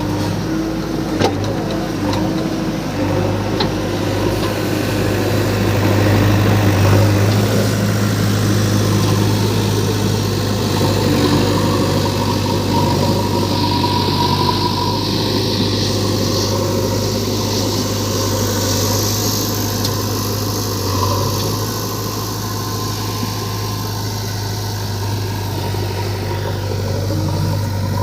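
Diesel engines of a backhoe loader and a farm tractor running steadily with a low hum. There is a sharp knock about a second in.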